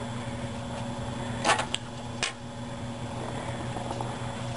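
Steady low hum of a fan, with a quick cluster of sharp clicks about a second and a half in and one more click shortly after, as pliers and laser-cut wooden parts are handled.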